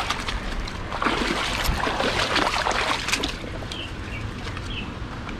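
Shallow creek water splashing and sloshing: irregular splashes over a steady rush of water.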